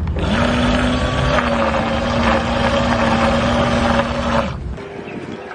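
Twin electric propeller motors of a Flytec 2011-5 RC bait boat running at full power: a steady whine over a rushing noise. It spins up in pitch just after the start and cuts off about four and a half seconds in.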